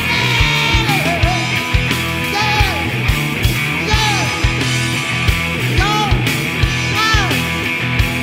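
Live hard rock band playing: distorted electric guitars, bass and a drum kit with a steady kick-drum beat about twice a second, and a male singer's voice bending in pitch over the top.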